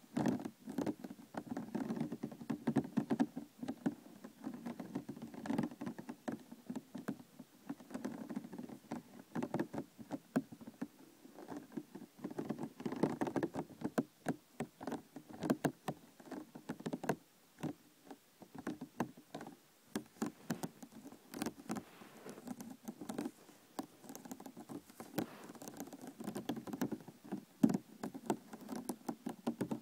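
Plastic container handled and tapped by hand, making a fast, irregular patter of light taps and clicks with an occasional louder knock.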